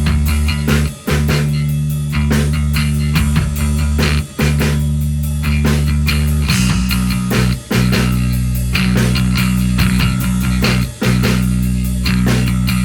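Bass guitar and drum kit playing a rock riff built on two sustained bass notes. Bass and drums stop together for short, cleanly muted pauses about every three seconds.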